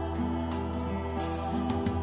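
Instrumental background music with steady, held notes.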